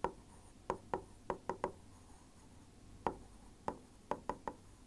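Marker pen writing on a whiteboard: a run of short, quick strokes and taps, pausing for about a second midway before a second run of strokes.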